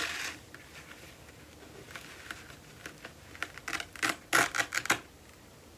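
A cutout elf figure being peeled off a felt board: light rustling and rubbing, then a short burst of scratchy ripping noises about four seconds in as it comes away.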